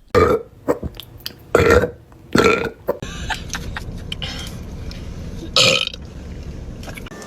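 Girls burping: four loud burps, three within the first three seconds and a fourth a little past the middle.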